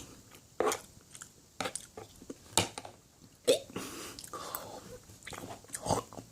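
Mouth chewing fresh mozzarella close to the microphone: irregular smacks and clicks, about one a second.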